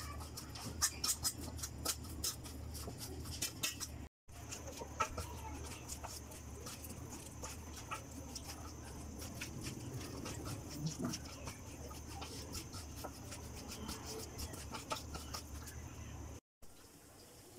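Hands mixing flour-coated potato strips, spinach and onion for pakora: fast, irregular wet squishing and clicking over a steady low hum, broken by two brief dropouts.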